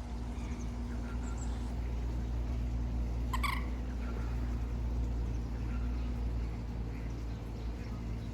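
Steady low rumble of outdoor background noise, with one short high-pitched call about three and a half seconds in.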